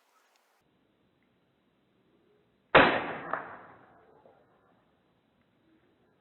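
Daisy Powerline 880 pump air rifle firing once: a sharp report about three seconds in that dies away over about a second and a half, with a second sharp click about half a second after it.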